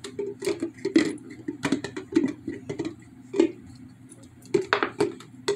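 A German Shepherd licking and gnawing inside an empty plastic peanut butter jar: irregular clacks and knocks of teeth and jar against the plastic, loudest about a second in and again near the end.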